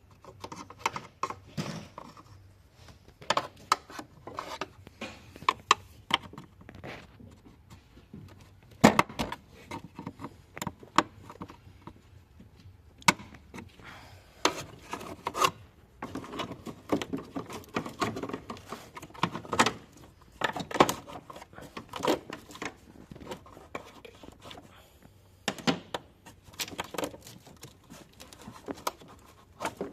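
Hand tools and parts being handled during engine repair work: irregular clinks, knocks and scrapes, with the sharpest knock about nine seconds in.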